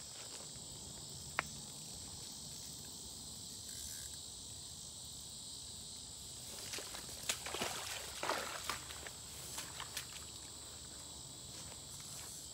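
Steady high buzz of insects, with one sharp click a little over a second in. From about six to ten seconds in there is a stretch of irregular rustling and crunching: footsteps through bankside grass and weeds.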